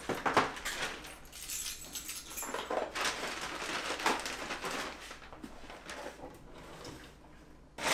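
Thin plastic shopping bag rustling and crinkling in irregular bursts as it is handled and unpacked, with a sharp knock about half a second in.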